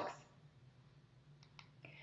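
Very quiet room tone with two faint, sharp clicks about one and a half seconds in, followed by a short soft hiss.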